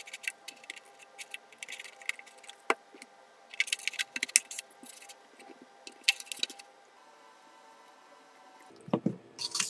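Handling noises of light 3D-printed plastic wing parts being fitted together and glued: small clicks, taps and rubbing, with two busier clusters of clicks in the middle and a duller thump near the end.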